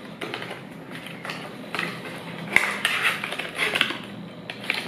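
Small paperboard product box being opened and handled, with the serum bottle slid out of it: a string of scrapes, taps and rustles of cardboard.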